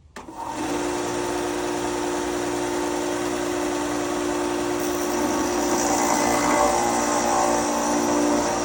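Bauer belt grinder and disc sander combo switched on: the motor starts and runs up to speed within about half a second, then hums steadily. From about five seconds in a harsher sanding hiss joins it as a workpiece is pressed against the spinning disc.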